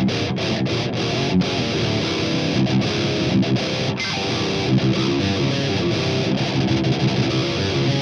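Electric guitar through the Grindstein HM2-style distortion plugin with its gain turned down low, playing a metal riff of choppy, tightly stopped notes.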